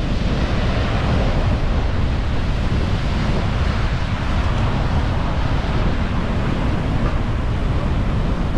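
Big sea waves breaking and washing up the beach in a steady surf hiss, with strong wind buffeting the microphone in a heavy low rumble.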